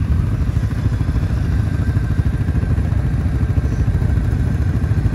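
ATV engine running steadily close by, a fast even pulsing with no change in revs.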